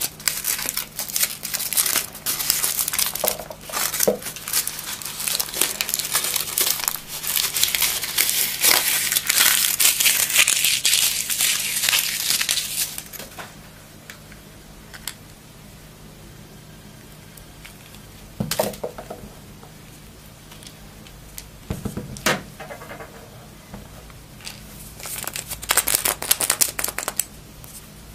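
Foil wrapper of a chocolate surprise egg crinkling as it is peeled off, with dense rapid crackling for about the first thirteen seconds. It then gives way to a few separate handling noises and another short spell of crinkling near the end.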